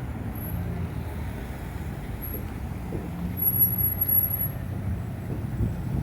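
Road traffic on a busy street: vehicle engines running past, a larger vehicle such as a truck or bus among them, with a louder passing swell about three and a half seconds in.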